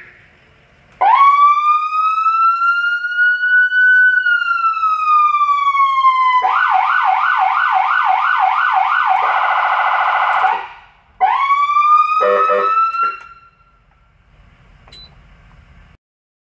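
Fire engine electronic siren driven by a Feniex Typhoon controller, stepped through its tones: a slow wail rising and falling once, then a fast yelp at about three sweeps a second, then a very rapid warble that cuts off. It starts again with a rising wail and a short lower horn-like blast, then stops.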